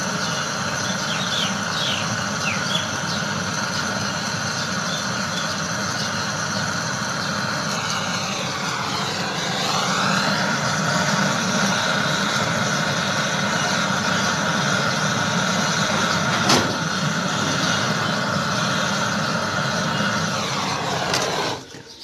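Handheld butane-cartridge blowtorch burning with a steady hiss while brazing copper refrigerant pipes in a chest freezer's compressor compartment. Its note dips and rises briefly about nine seconds in, there is one sharp click about two-thirds of the way through, and the flame is shut off suddenly just before the end.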